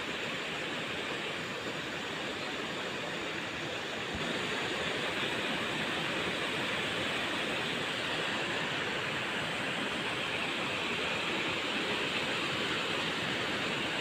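Steady rushing of flowing river water, getting slightly louder about four seconds in.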